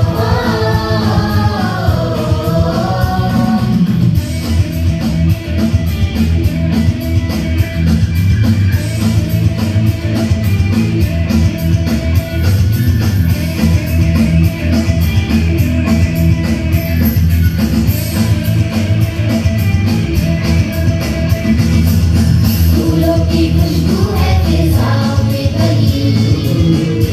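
Music for a dance: a song with a steady beat, with singing in the first few seconds and again near the end and mostly instrumental in between.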